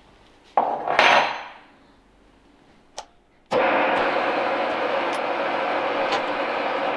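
Reiden milling machine's spindle switching on about three and a half seconds in and running steadily, with a boring head turning but not yet cutting. Before that there is a loud knock about half a second in and a short click just before the start.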